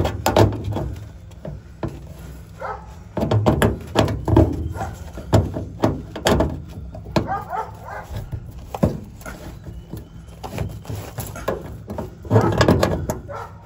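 Irregular knocks and thuds from a small hammer tapping a piece of wood against the bent aluminium skin of an Airstream trailer, trying to knock it back into shape.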